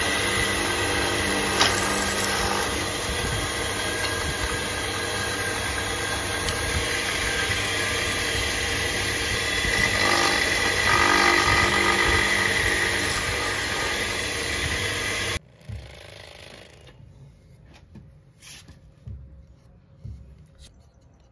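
Bench drill press running steadily and boring a hole through the end of a wooden spatula handle, its sound growing louder for a few seconds around the middle. It stops abruptly about three-quarters of the way in, leaving only a few faint taps.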